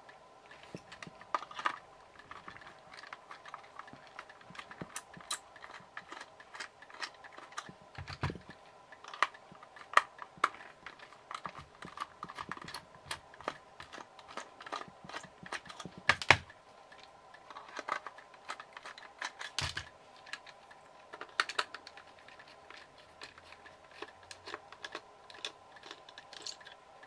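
Small screwdriver taking the screws out of a plastic toy car's chassis: irregular light clicks and ticks of the driver, the screws and the plastic body being handled, with a few heavier knocks.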